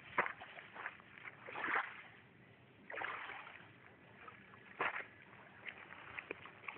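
Water lapping and splashing against a pebble shore, in separate bursts every second or two, with small clicks between them.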